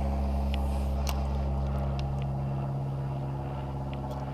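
Boat motor running with a steady low hum, with a few faint ticks.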